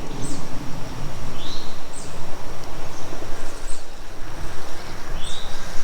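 Loud, unsteady low rushing noise of outdoor ambience at a creek, with a few short, high bird chirps that glide in pitch, one about a second and a half in, another around two seconds and another near five seconds, over a faint steady high insect drone.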